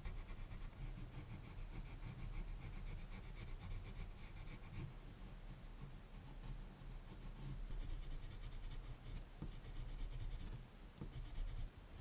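Prismacolor colored pencil scratching on drawing paper in quick, short shading strokes, easing off briefly about five seconds in before resuming.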